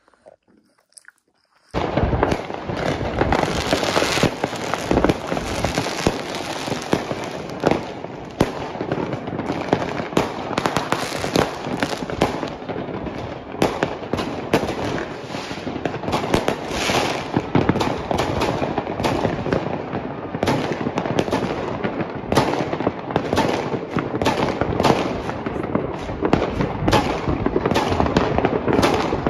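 New Year's fireworks and firecrackers going off: a dense, continuous barrage of bangs and crackling that starts suddenly about two seconds in.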